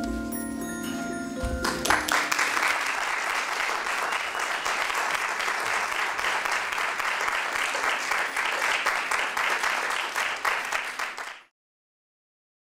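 Sustained music notes end about two seconds in, and an audience breaks into applause, which stops abruptly about eleven seconds in, leaving dead silence.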